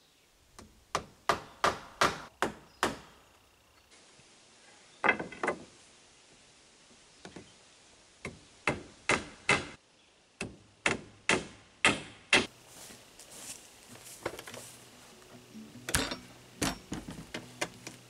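Hammer driving nails into wood framing: runs of sharp, ringing strikes, about two to three a second, with short pauses between the runs.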